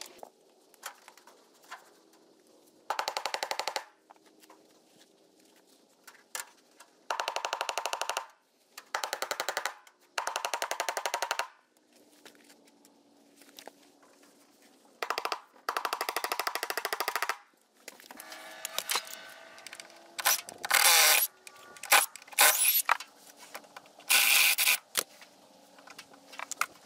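Power drill fitted with a spade bit, run in a series of short bursts of a second or two, the bit chattering rapidly as it countersinks staples that stand proud of the surface; the last few bursts are louder and more ragged.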